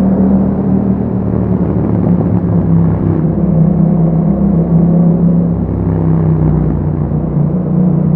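Yamaha MT-07's parallel-twin engine running through an Akrapovic aftermarket exhaust while riding at a fairly steady speed; the pitch eases slightly in the middle and rises again near the end.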